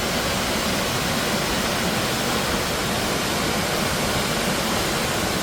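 The Falls of Foyers waterfall, a steady rush of falling water.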